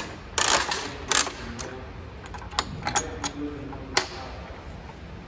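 A series of sharp clicks and knocks from a coin-operated capsule vending machine, its metal crank being turned and a prize capsule dropping into the chute. The clicks come as a quick cluster about half a second in, then single knocks spread through the next few seconds, the last near the end.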